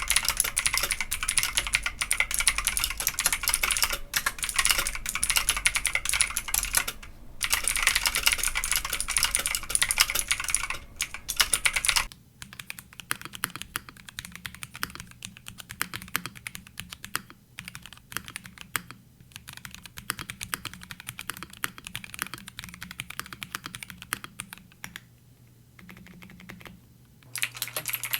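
Fast typing on mechanical keyboards. The first part is a BlackShark Sixgill BS-K2 with loud, bright clacking. About twelve seconds in it cuts to a MelGeek Mojo 84 with much quieter, softer key presses, and near the end a louder keyboard takes over.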